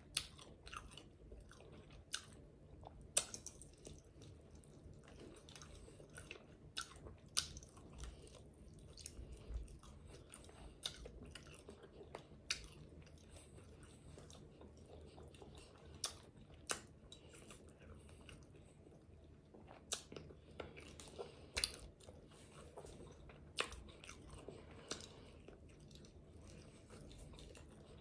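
Close-miked eating: biting and chewing crispy fried chicken, with irregular sharp crunches and mouth smacks.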